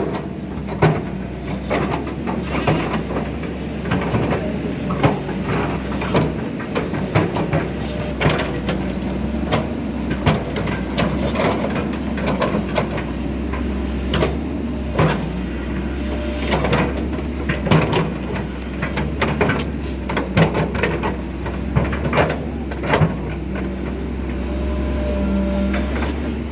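Excavator's diesel engine running steadily, with frequent knocks and clatter as it works the soil.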